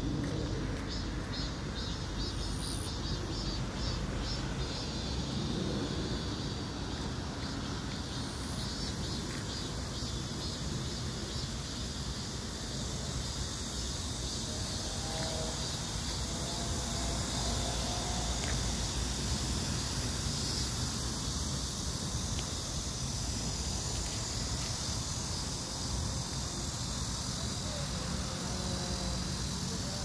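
Insects trilling and buzzing in a grassy field, a high rapid pulsing at first settling into a steady hiss, over a low rumble of wind buffeting the phone's microphone.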